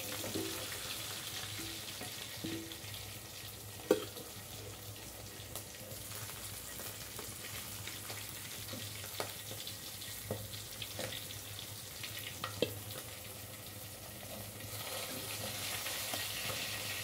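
Masala-coated ladyfish frying in shallow oil in a kadai, a steady sizzle. Sharp clicks of metal tongs against the pan come now and then as the pieces are turned and lifted out.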